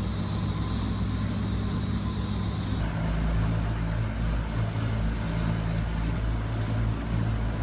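Motorboat engine running at speed, a steady low hum under the rush of wind and water. The higher hiss drops away abruptly about three seconds in.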